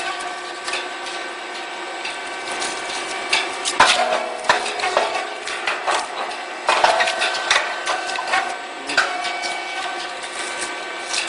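Puffed corn cake machine running: steady mechanical clatter with a constant whine, and sharp knocks every second or two.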